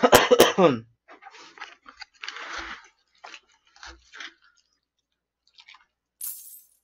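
A man chewing food close to the microphone: a brief vocal sound with sharp clicks at the start, then scattered short chewing noises that fade out about four seconds in.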